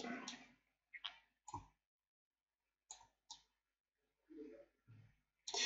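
A few faint, separate computer mouse clicks, about four spread over a couple of seconds, with a faint low sound near the end.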